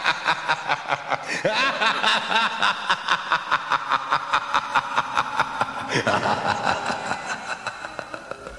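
Long maniacal laugh: a rapid, rhythmic run of 'ha-ha-ha' bursts, about five a second, that fades toward the end.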